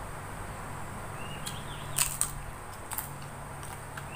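Crispy peyek teri (fried anchovy cracker) snapping as it is broken by hand, a few sharp cracks with the loudest about two seconds in.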